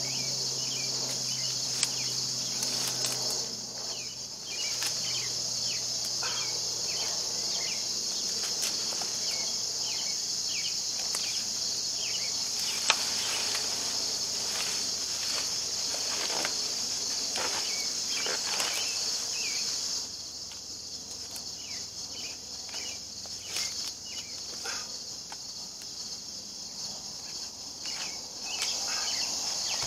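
Steady high-pitched chorus of insects, which drops away about two-thirds of the way through and comes back near the end. Scattered knocks and scrapes from old wooden rails being pulled from a pile.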